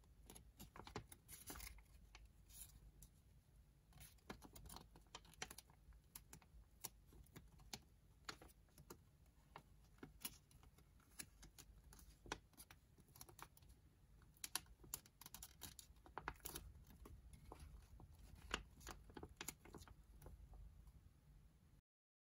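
A sheet of origami paper being folded and creased by hand: an irregular patter of small paper crackles and rustles, with sharper clicks here and there. It stops abruptly just before the end.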